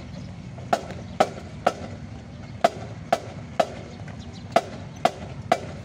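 Sharp percussive strikes in a steady pattern: three hits about half a second apart, a short pause, then three more, repeating. A steady low background noise runs underneath.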